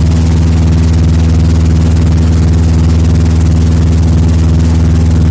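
Candlenut and nutmeg cracking machine running with a loud, steady low hum.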